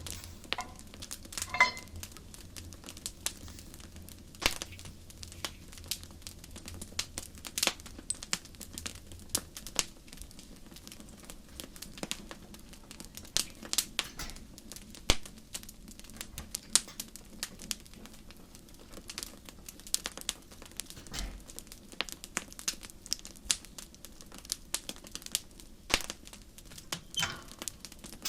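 Burning logs crackling: irregular sharp pops and snaps, some much louder than others, over a faint steady hiss.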